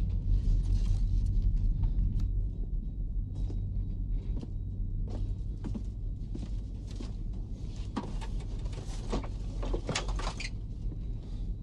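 Steady low drone of a B-52 bomber's engines heard inside the cockpit, with scattered short clicks and rattles on top.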